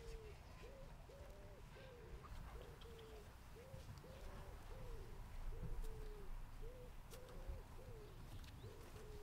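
A dove cooing over and over in a steady run of low coos, about two a second, over a faint low rumble.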